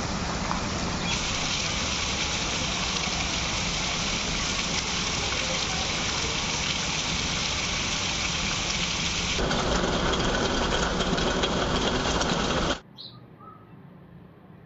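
Heavy monsoon rain falling, a dense steady hiss, which cuts off abruptly near the end to a much quieter background with a couple of short high chirps.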